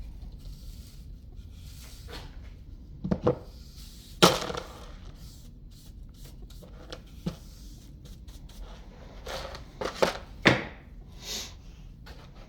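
Scattered knocks and clinks from the broken slider window frame and its shattered glass being handled: two close together about three seconds in, the loudest about four seconds in, and a cluster around ten seconds.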